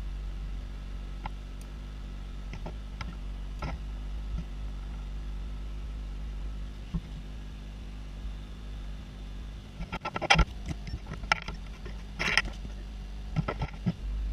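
A steady low hum, with a few faint ticks and then a run of sharp clicks and knocks over the last four seconds or so, like small objects being handled on a workbench.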